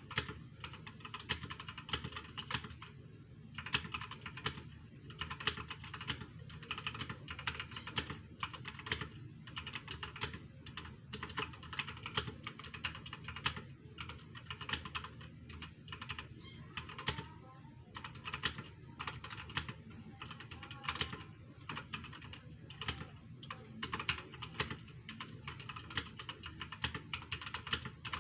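Computer keyboard being typed on fast, a continuous patter of keystrokes with a brief lull about three seconds in.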